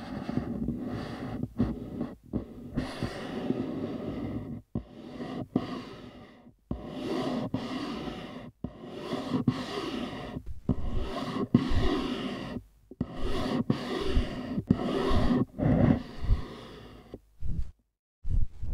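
Soundtrack of noisy, breath-like sounds, cut into segments of one to two seconds by sudden silences, breaking into short fragments near the end.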